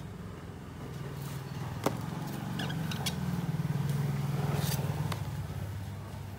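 Low engine rumble of a vehicle in the background, swelling about halfway through and then fading. Over it come a few sharp metallic clicks and taps as a screwdriver and the small engine's parts are handled.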